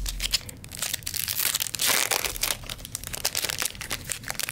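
Crinkling and crackling of a Modern Horizons 2 booster pack's foil wrapper as it is handled and opened, busiest about one to two seconds in.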